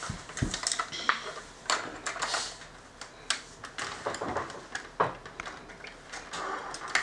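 Plastic toys being handled: scattered irregular clicks and clatters of hard plastic against plastic and the floor.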